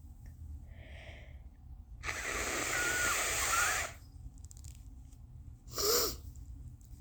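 A person blowing their nose hard for about two seconds, a noisy blast with a squeaky whistle through the nose partway through. A short, sharp burst of the same kind follows about two seconds later.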